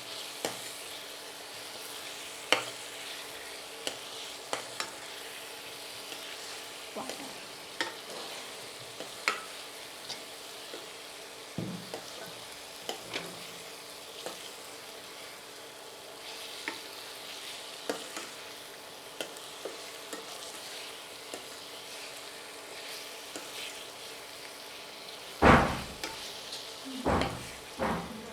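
Fried potatoes being stirred into a spiced masala in a karai: oil sizzles steadily while the stirring utensil clicks and scrapes against the pan, with a few louder knocks near the end.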